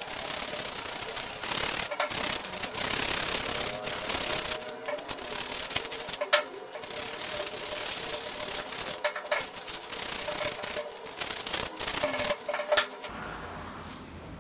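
Sandpaper rubbed by hand over the steel head of an antique axe: a rough, scratchy rasp in repeated back-and-forth strokes with short pauses. It stops near the end with a sharp click.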